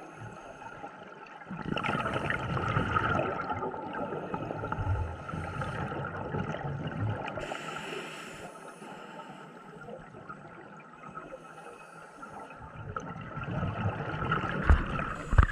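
Scuba breathing heard underwater through a regulator: a hiss on each inhalation every few seconds, and a bubbly rumble and gurgle of exhaled air, loudest in the first half.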